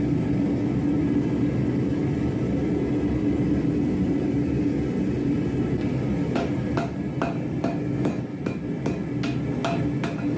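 A steady rushing noise, then, a little past halfway, hammer blows on hot steel at an anvil, two to three a second and evenly paced: a Damascus billet being hammered to forge-weld its layers together.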